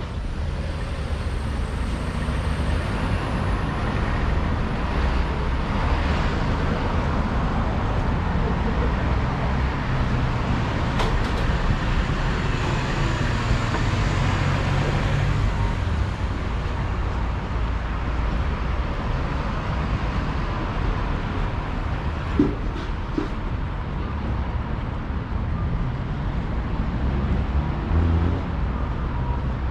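Busy city street traffic: cars and buses passing in a steady rumble, swelling for a few seconds midway as a vehicle goes by. A short sharp knock comes a little past two-thirds through.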